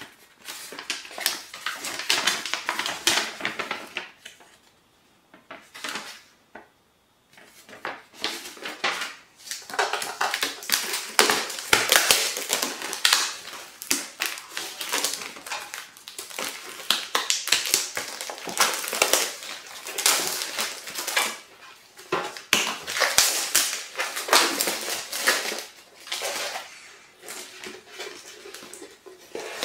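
Packaging being torn and peeled open by hand: dense crinkling and rustling with many small clicks, easing into a short lull around five to seven seconds in.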